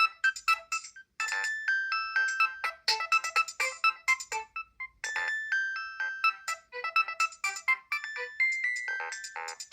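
Nokia 7250i's polyphonic ringtones playing: a synthesized melody of quick, short notes, with brief breaks about a second in and near five seconds in.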